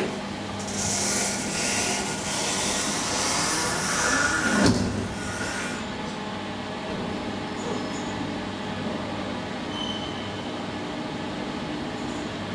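Elevator doors of a 2012 SMW traction elevator sliding shut, a hissing rumble that ends in a sharp knock about five seconds in, then a steady hum from the car.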